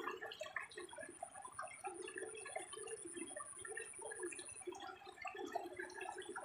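Water splashing and gurgling in quick, irregular little bursts, with a thin, steady high-pitched whine behind it that drops out briefly twice.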